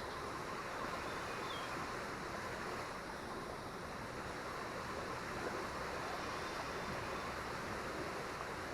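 Steady rushing noise of a high, fast-flowing river below a dam releasing water.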